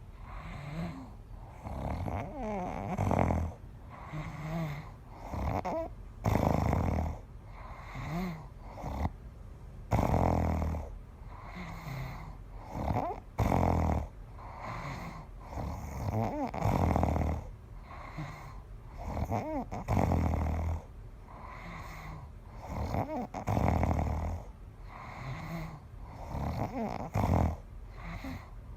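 A sleeping person snoring, with a loud snore about every three and a half seconds and quieter breathing in between.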